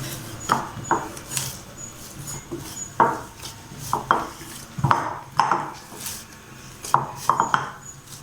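Irregular knocks and clinks of a steel vessel and utensils as soft dough is kneaded and handled, some strikes ringing briefly.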